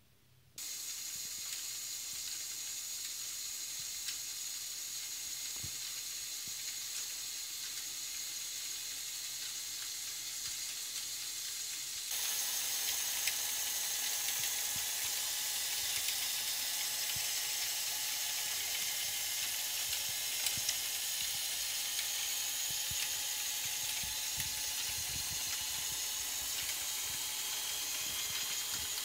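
A Lego electric motor is switched on about half a second in and drives the gear train of a Great Ball Contraption module. It runs as a steady whir with a faint high whine and scattered light clicks from the mechanism, and gets louder about twelve seconds in.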